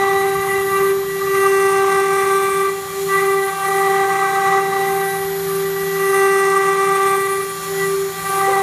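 Metal CNC router spindle whining at a steady high pitch as it mills a pocket in a metal plate, dipping briefly in level a few times.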